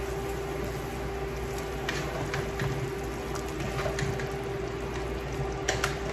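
A large stockpot of red curry boiling, with a steady bubbling hiss and a faint steady hum underneath, and a scatter of short plops and splashes as chunks of food are dropped into it by hand.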